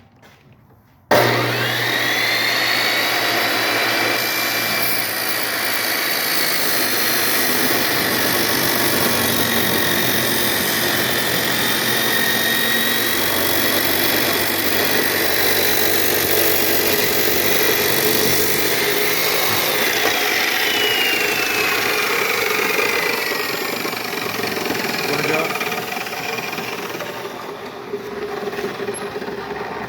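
Makita chop saw starting suddenly about a second in and running with a loud high whine while it cuts into an old tablet; about two-thirds through the whine slides down in pitch, and the sound eases off near the end.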